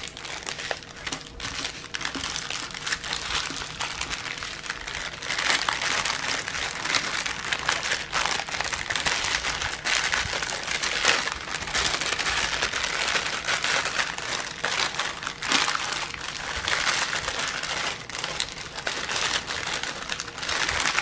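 Clear plastic packaging bag crinkling and crackling without a break as hands handle it and open it.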